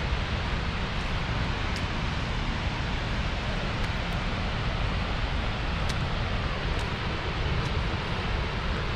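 Skógafoss waterfall's falling water: a loud, steady, even rush with no change.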